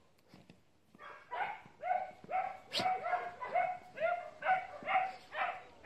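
A dog barking in a steady run of short, pitched barks, about two a second, starting about a second in.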